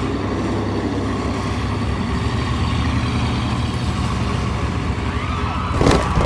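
Radio-controlled toy trucks running in a race, their motors giving a steady hum, with a single sharp knock about six seconds in.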